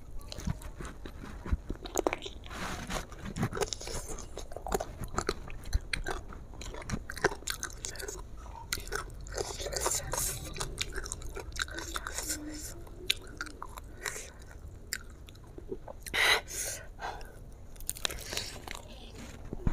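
A person biting and chewing crispy-battered fried chicken, close up: a dense run of crackling crunches from the crust breaking between the teeth, with one louder crunch late on.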